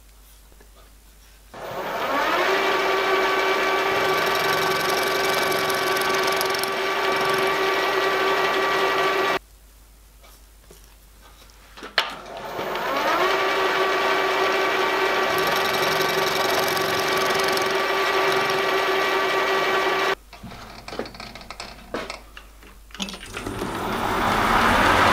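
Small milling machine spindle motor spinning up with a short rising whine and running steadily while an end mill cuts a square on a small steel part, stopping suddenly, then doing the same again after a sharp click. A few light knocks follow, and near the end a lathe starts up.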